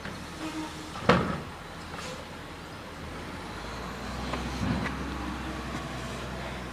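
Garbage truck working down the street, its engine running as a steady low rumble. There is a sharp bang about a second in. The engine note rises a little past the middle, with a couple of metallic clanks.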